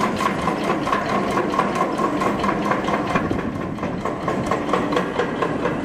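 Chain ferry's drive machinery running under way: a steady engine hum and whine with rapid, even clanking as the big chains are hauled up off the riverbed and run through the drive wheels.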